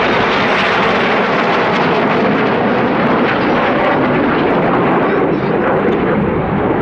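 Loud, steady jet noise from a formation of BAE Hawk T1 jets with Adour turbofan engines flying a display manoeuvre, dipping slightly about five seconds in.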